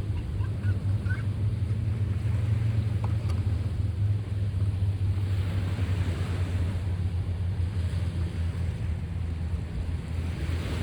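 Sea waves washing in, swelling and easing every few seconds, over a steady low drone.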